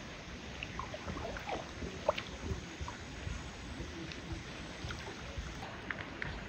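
A dog wading through shallow water, with the water sloshing and scattered small splashes as it moves.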